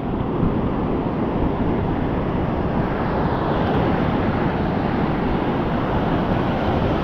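Heavy sea surf breaking on a beach, a steady roar with wind rumbling on the microphone.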